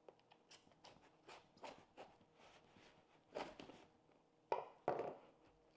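Knife slicing through packing tape on a cardboard box, with cardboard being handled: a series of short scraping, crackling strokes, the loudest pair near the end.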